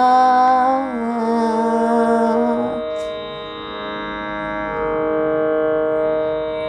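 A boy's Carnatic singing voice holds the final long note of the song, stepping down in pitch about a second in and stopping near three seconds in. A steady drone from an electronic shruti box carries on alone after the voice stops.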